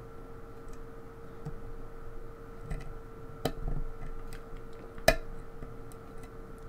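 Steel lock pick working the pins of a pin tumbler lock under tension: scattered small clicks and scrapes, with a sharper click about three and a half seconds in and the loudest one about five seconds in.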